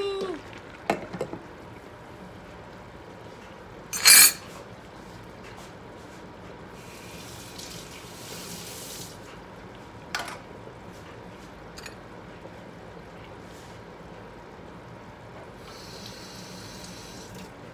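Saucepan of vegetable stew simmering on an electric stove with a steady watery bubbling. Its glass lid is set on with a sharp clatter about four seconds in, followed by a lighter knock around ten seconds.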